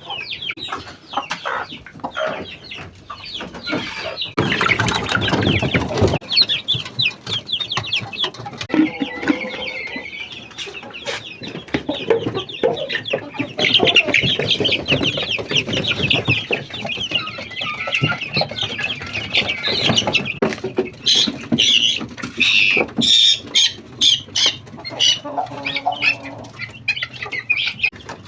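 Kept birds calling and chattering continuously during feeding, with wing flaps and sharp clicks and knocks, the knocks thickest a little before the end.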